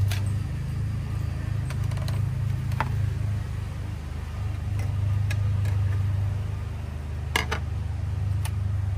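A steady low machine hum runs throughout. Over it come a few sharp clicks and knocks of PVC pipe and fittings being handled, the loudest about seven seconds in.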